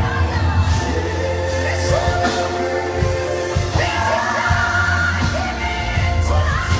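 Live gospel praise song: a woman sings held notes into a microphone over a band with a steady deep bass and drums, through a concert PA.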